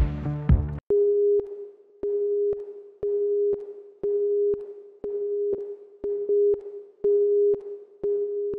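Music stops about a second in, and a countdown beep takes over: a steady mid-pitched electronic tone pulsing about once a second, each beep starting with a click.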